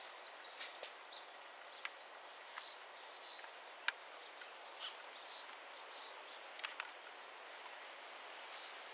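Faint outdoor marsh ambience: small birds give short high chirps again and again over a steady soft hiss. A few sharp clicks are heard, the loudest about four seconds in.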